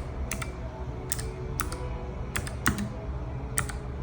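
Separate keystrokes, about six in four seconds, on a NuPhy Air60 low-profile mechanical keyboard with clicky Gateron Blue switches.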